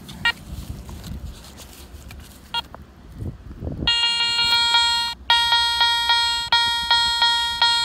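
Metal detector giving its target tone for a freshly dug round object passed over the coil: a couple of single short beeps, then from about four seconds a held tone breaking into quick repeated beeps, about two and a half a second. A strong, clean signal that sounds really good.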